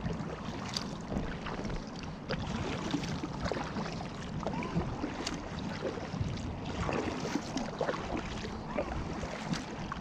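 Kayak paddle strokes in calm lake water: the blades dip in and drip, with irregular small splashes and trickles. There is a steady low rush of wind on the microphone underneath.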